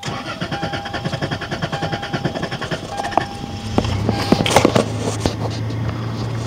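Toyota Tacoma's swapped-in V6 being cranked by the starter, a fast even chugging for about three and a half seconds, before it catches and settles into a steady run. This is the extended cranking of a hard-starting hot engine, which the owner puts down to heat soak.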